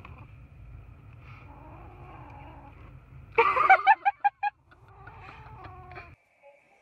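A child's sudden excited squeal breaking into a quick run of giggles about three and a half seconds in, over a low steady hum inside a car that cuts off near the end.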